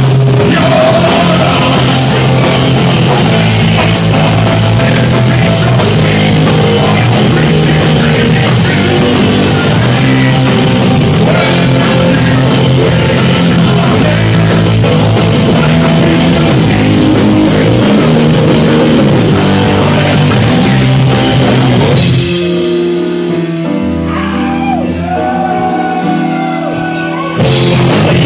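Live rock band playing loud: electric guitar, drum kit and singing into a microphone. About 22 seconds in the full band drops to a quieter, sparser passage of separate held notes for about five seconds, then the full band comes back in near the end.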